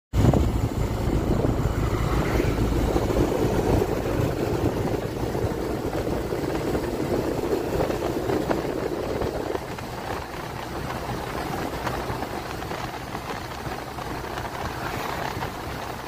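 Motorcycle riding along a road: the engine's steady low hum under wind and road noise, a little quieter from about ten seconds in.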